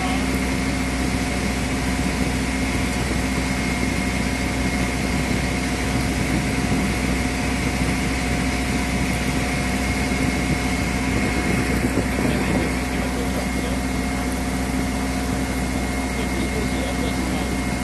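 A boat's engine running steadily, heard from on board: a constant hum with a thin, steady whine over it.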